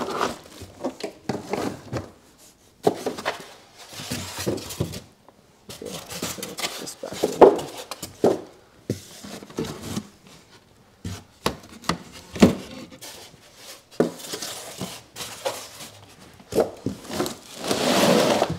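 Packing handling noise: a plastic-wrapped unit, cardboard box flaps and styrofoam inserts knocked, scraped and rustled irregularly as the unit is packed into its box, with a longer rubbing scrape near the end.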